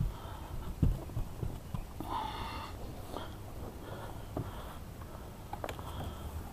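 Scattered knocks and clicks of fishing gear being handled on a bass boat's deck, with one louder thump about a second in, over a low steady hum.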